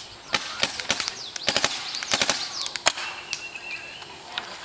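Paintball markers being fired over a chronograph for velocity testing: about a dozen sharp pops at uneven spacing, some in quick bursts around the middle.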